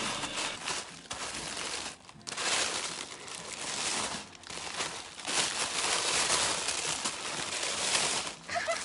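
Tissue paper and plastic wrapping crinkling and rustling as they are pulled apart and lifted out of a shoe box. It goes in long stretches, with brief pauses about two, four and five seconds in.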